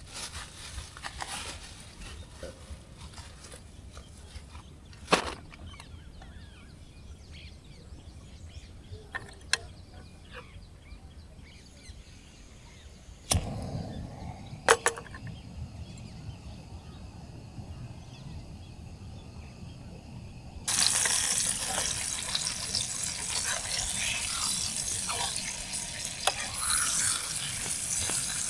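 Camp cooking: a few sharp clicks and knocks of cookware over quiet outdoor ambience, then, about two-thirds of the way through, food suddenly starts sizzling in a hot pan and keeps sizzling loudly.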